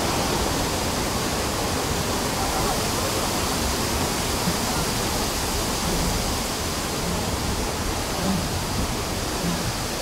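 Heavy, steady rush of a torrent of water pouring and cascading over ledges: the staged flood of a theme-park earthquake ride.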